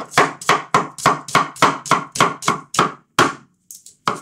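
Chinese cleaver chopping a red onion on a bamboo chopping board: a quick, even run of knocks of the blade on the board, about four a second, that stops a little after three seconds in, with one more knock near the end.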